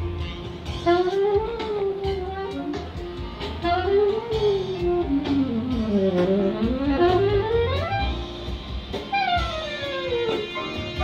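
Instrumental music: a lead melody that slides up and down in pitch over a steady bass line.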